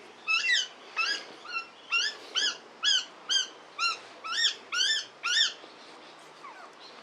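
Pet parrot calling over and over, about a dozen short, repeated calls that each rise and fall in pitch, roughly two a second, stopping shortly before the end.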